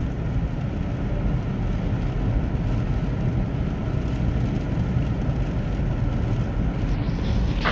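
Steady road noise inside a car's cabin on a rain-soaked freeway: tyres running on wet pavement and rain on the car, a low, even rumble.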